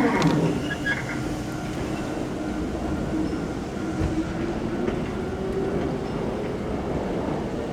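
Hankyu electric train running, with a low rumble throughout. A whine falls in pitch in the first half-second, then a steady motor tone slowly rises in pitch.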